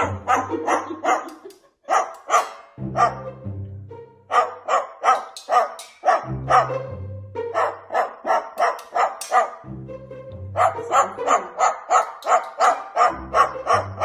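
Background music with a bass line, over which come quick runs of short, yappy bark-like sounds, about four a second, pausing every couple of seconds.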